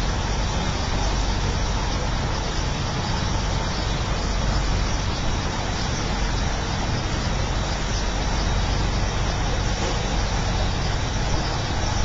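Steady rushing noise of a moving tour boat under way, wind and water noise with a low rumble, unchanging throughout.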